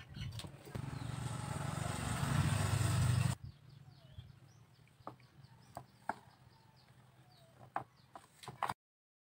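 An engine rumble with a hiss builds over about three seconds and is cut off abruptly. It is followed by a few light clicks and taps of thin bamboo strips being handled on a board, with faint bird chirps.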